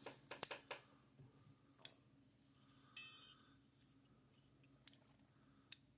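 Scattered clicks and a single short ringing clink of metal hand tools being handled on a workbench, with a faint steady low hum underneath.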